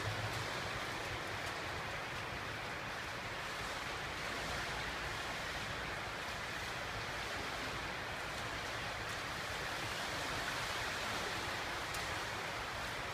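Indoor swimming pool ambience: a steady wash of water noise from a swimmer's strokes and the lapping water in the pool.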